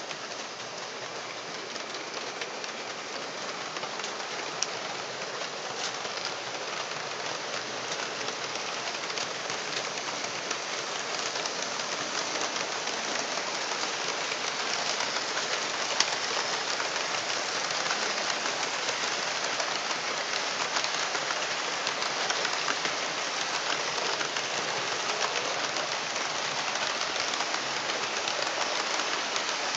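Model trains running on the layout's track: a steady rattling hiss of wheels and motors that grows slowly louder as the trains come by, with an odd sharp click.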